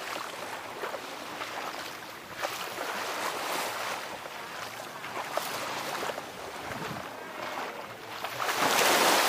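Small sea waves washing onto a sandy beach, with wind on the microphone; a louder wash of water about nine seconds in.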